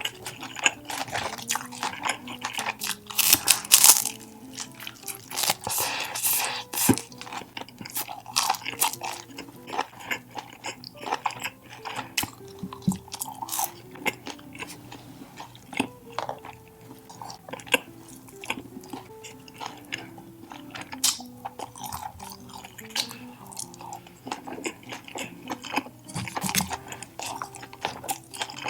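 Close-miked chewing with crisp crunching bites and wet mouth sounds, strongest about three to four seconds in, over quiet background music.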